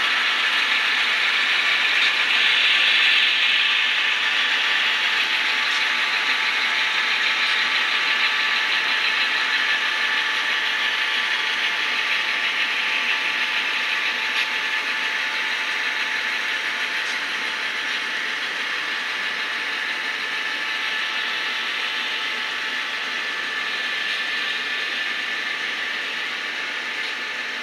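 Model Union Pacific diesel locomotives running past, their motors and gear drives whirring steadily and slowly fading as the train moves on.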